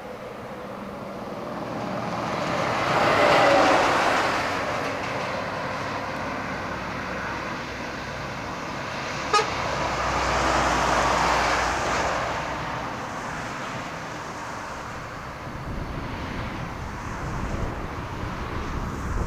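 Road traffic with trucks driving past, two swells of engine and tyre noise that build and fade. A single brief, sharp sound about nine seconds in.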